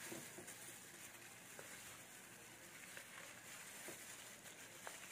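Faint soft tearing of boiled chicken meat pulled apart by hand, with the crinkle of thin plastic food gloves and a few faint small clicks over a low steady hiss.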